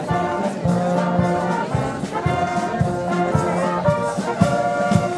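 Traditional Austrian wind band of brass and woodwinds playing a tune outdoors, with tubas marking a steady beat of low notes under the melody.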